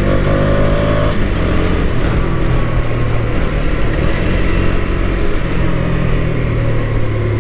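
KTM Duke 250's single-cylinder engine running as the motorcycle is ridden. Its pitch rises in the first second, then a rush of wind noise through the middle partly covers it, and it comes through steady again near the end.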